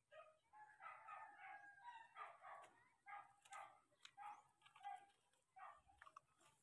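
Domestic animals calling in a quick run of short, pitched calls, about two a second.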